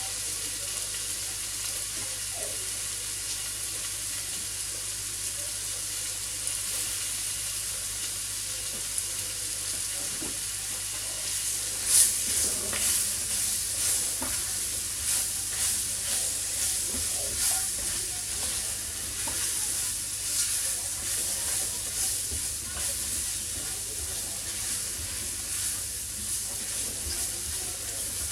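Onions, mushrooms and pepper with curry spices frying in oil in a Dutch oven: a steady sizzle. From about twelve seconds in, the vegetables are stirred through in repeated scraping strokes, the first one the loudest.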